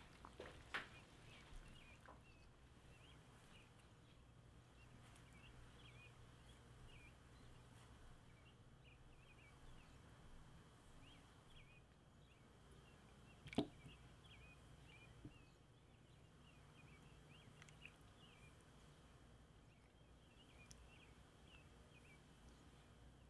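Near silence with faint birds chirping in the background, short repeated chirps throughout. A sharp click comes about 13 seconds in, and a softer one near the start.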